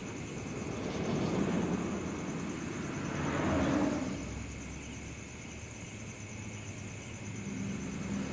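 Outdoor traffic noise: two vehicles passing, each a swell of road noise that rises and fades within the first four seconds, then a quieter spell.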